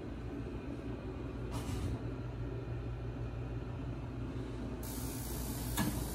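HeatStar 50,000 BTU gas garage unit heater in its first start-up sequence, just before the burner lights: a steady low hum, a short hiss a little under two seconds in, then a brighter hiss that comes on about five seconds in and holds, and a sharp click near the end.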